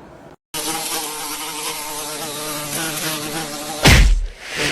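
A steady buzz with a slightly wavering pitch, then a loud sudden thump near the end.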